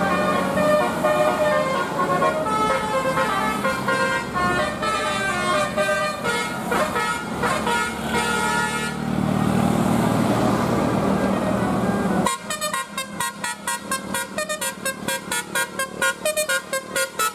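Bus telolet horn, a multi-tone musical air horn, playing a changing melody of held notes. It is followed by a few seconds of rushing noise with a low rumble. After a sudden change, the horn sounds rapid stuttering toots, about three a second.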